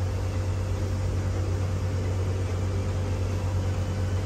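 Motor launch's engine running at cruising speed, a constant low drone with a steady rushing noise of water and air around the boat.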